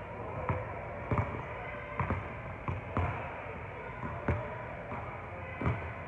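Basketball being dribbled on a hardwood gym floor: sharp bounces at an uneven pace, about one every half second to a second.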